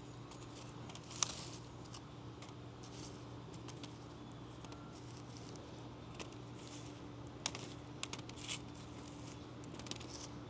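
Soft rustling and crackling of hands digging through straw and soil, with a few sharp light knocks, the clearest about a second in and near seven and a half seconds, over a faint steady hum.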